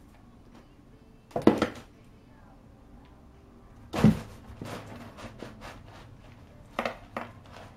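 Cat jumping into a cardboard box full of crumpled brown packing paper: a loud rustle about a second and a half in, then a thump on the cardboard with a crackle of paper about four seconds in, followed by shorter rustles as it burrows into the paper.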